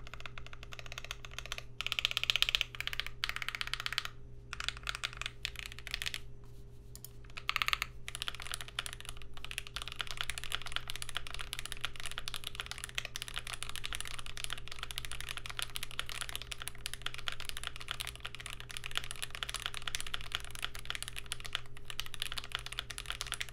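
Fast typing on a GMMK Pro mechanical keyboard with lubed and filmed Banana Split linear switches, a polycarbonate plate and GMK keycaps. There are brief pauses about four and six seconds in, then continuous rapid typing.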